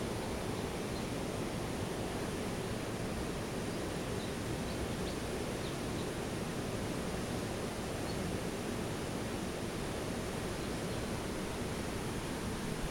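Steady, even outdoor background noise, a hiss with a low rumble under it, with a few faint high chirps about four to six seconds in.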